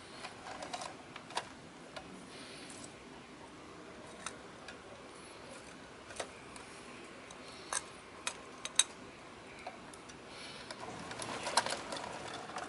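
Scattered sharp clicks and taps from a First Gear 1/34-scale diecast model side-loader garbage truck being worked by hand: its plastic automated arm and a toy cart clicking as the cart is lifted and dumped. A denser run of clicks comes near the end.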